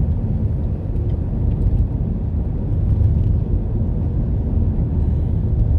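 A car driving on the road: steady low rumble of engine and tyres.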